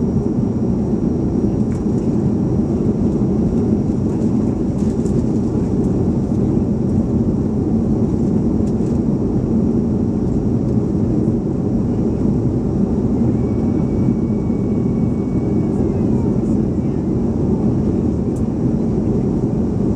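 Steady cabin roar of a Boeing 737-300 in the climb, heard inside the cabin from a seat over the wing: its CFM56-3 jet engines and the rush of air along the fuselage.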